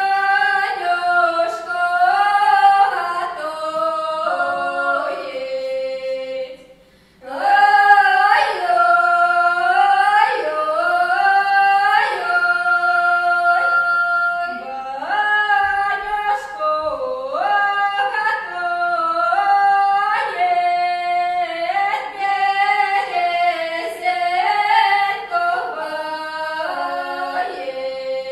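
Two women singing a Russian reaping song unaccompanied in two voice parts, in traditional village folk style. They break off briefly for breath about seven seconds in, then go on.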